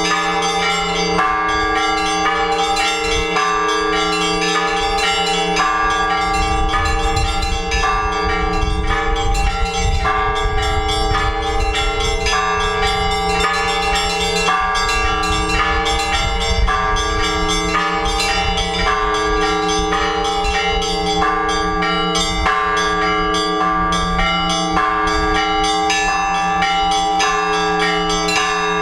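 Orthodox church bells, several of them, rung together by hand in a rhythmic peal: the small bells struck in a quick repeating pattern over the hum of the bigger bells. A low rumble sits under the ringing for several seconds in the middle.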